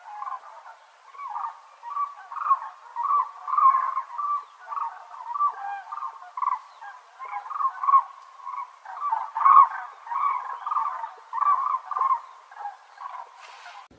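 A flock of cranes calling: many short, overlapping calls follow one another without a break.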